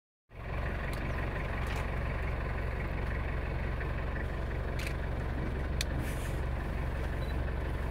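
A vehicle engine idling steadily, a low even rumble, with a few brief faint clicks.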